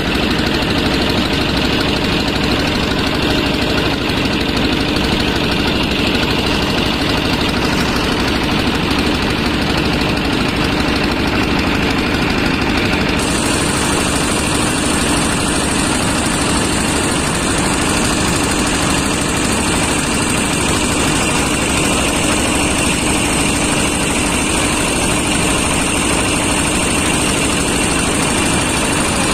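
Motor boat's engine running steadily with an even, continuous hum.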